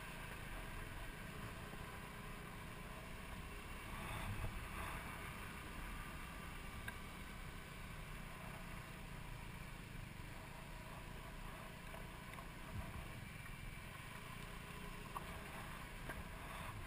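Motor scooter engine running steadily, swelling briefly about four seconds in.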